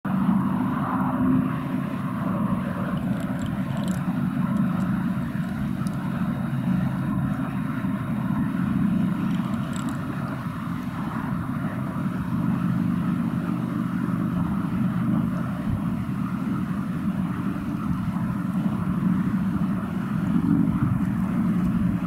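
Steady drone of an engine running, a low hum that holds an even pitch, with slight swells in loudness.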